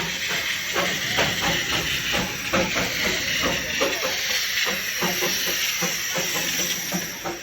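Darjeeling Himalayan Railway steam locomotive hissing steam, with a run of sharp chuffs about two to three a second.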